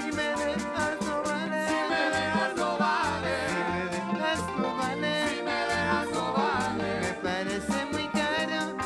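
Live bachata band playing: guitars, electric bass and hand drums, with a steady percussion beat and a pulsing bass line, amplified through a stage PA.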